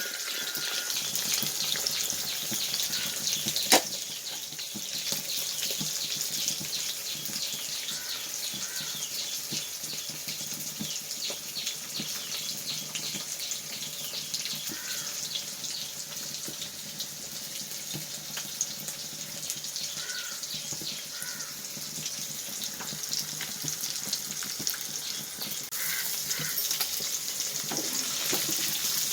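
Indian mackerel (ayila) pieces shallow-frying in hot coconut oil, sizzling and crackling steadily. There is one sharp knock about four seconds in.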